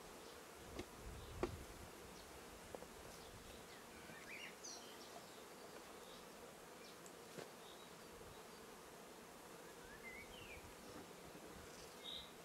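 Honeybees at an opened top bar hive, a faint steady buzzing hum, with a few light knocks of wooden top bars being shifted by hand, the loudest about one and a half seconds in.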